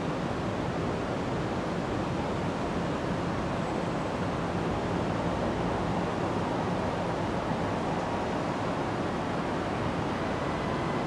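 Steady, even rushing outdoor background noise with no distinct events: the general roar of a high-rise city district.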